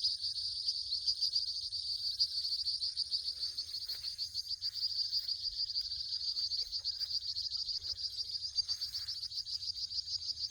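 Crickets trilling in a steady, dense chorus, a high-pitched fast pulsing, with a fainter short call repeating now and then beneath it.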